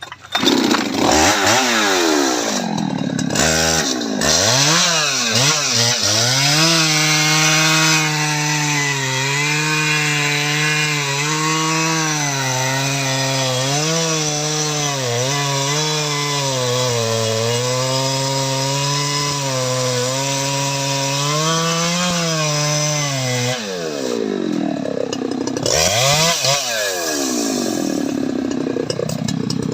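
Jonsered 2095 Turbo 93.6 cc two-stroke chainsaw revving in a few quick bursts, then held under load as it cuts through wood for about seventeen seconds, its engine note sagging and recovering with the cut. Near the end it revs up and down freely again.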